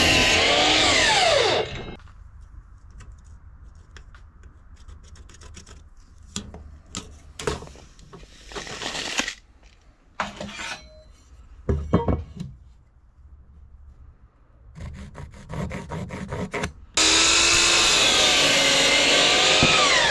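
Miter saw cutting through a 2x4: the blade whines through the wood and winds down about two seconds in. Knocks and clatter follow, then the saw starts again about three seconds before the end for another cut and begins winding down.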